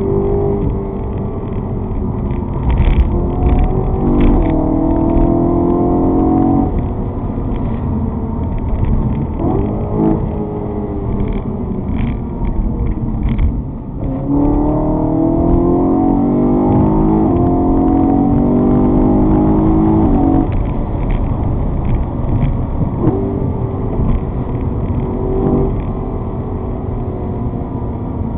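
Vehicle engine heard from on board under a steady low road rumble, pulling hard with its pitch climbing about three seconds in and again from about fourteen seconds in, each pull breaking off at a gear change before climbing again.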